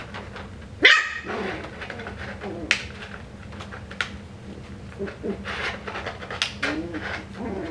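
Coton de Tulear puppies: one sharp, high-pitched yip about a second in, then small whimpers and grunts mixed with scattered clicks and taps as they move about.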